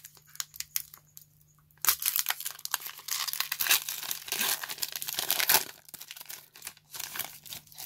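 Foil wrapper of a Pokémon trading-card booster pack being torn open and crinkled by hand: a few light crackles, then about two seconds in a dense run of crinkling and tearing that lasts about four seconds before easing to scattered crackles.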